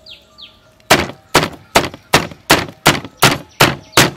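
Cleaver chopping through a deep-fried crispy pork belly roll onto a wooden chopping block: nine sharp chops at an even pace of about two and a half a second, starting about a second in.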